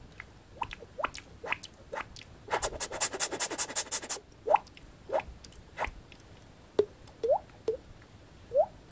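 Beatboxed waterdrop mouth sound: a string of short hollow drip-like pops, each rising quickly in pitch, made by flicking the tongue forward from the back of a rounded mouth. About two and a half seconds in comes a fast run of sharp clicks lasting over a second.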